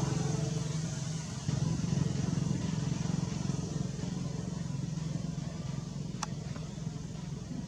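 An engine running steadily in the background, slowly fading, with one sharp click about six seconds in.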